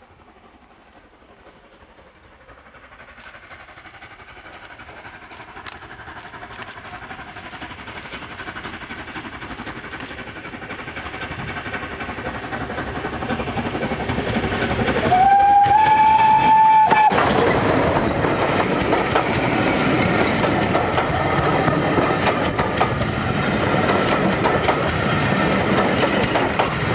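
Schools class 4-4-0 steam locomotive 30925 Cheltenham approaching, steadily growing louder. About fifteen seconds in it sounds its whistle, one steady note held for about two seconds. It then passes close by with loud wheel clatter from the coaches on the rails.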